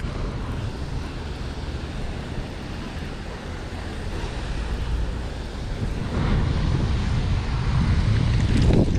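A steady low outdoor rumble, growing louder in the second half.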